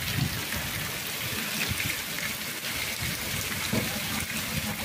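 Heavy rain pouring onto a paved street and tiled roofs: a steady hiss with irregular low rumbles underneath.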